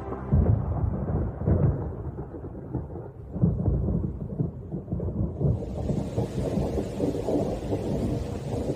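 Thunder rumbling in uneven surges, with rain hissing in about five seconds in.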